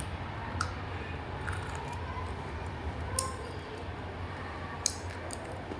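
A few sharp, crisp cracks of a piece of dry butter grey clay crunching, spaced out over a steady low hum.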